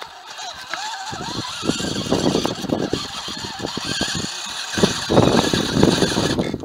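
Electric motor and gear drive of a 1/10-scale RC rock crawler whining and changing pitch as it climbs, with its tyres crunching and scrabbling over loose rock and gravel. The crunching starts about a second in and is loudest near the end.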